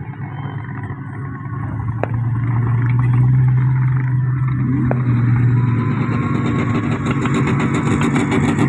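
A vehicle engine running loudly, its note swelling about two seconds in and rising in pitch around the middle, with a run of sharp crackles near the end.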